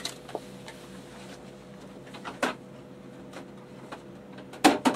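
Kitchen handling noises: a few scattered clicks and knocks, with a louder double knock near the end, over a faint steady hum. They are typical of a plastic container and a cupboard or fridge door being handled.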